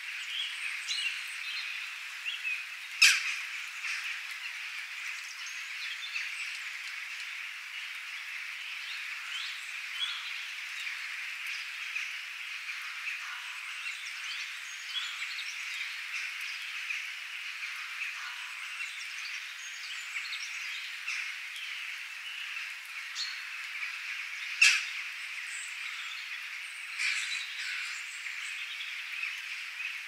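Nature recording of a dense, steady chorus of high-pitched animal calls, with sharp, loud bird calls standing out about three seconds in and again twice near the end.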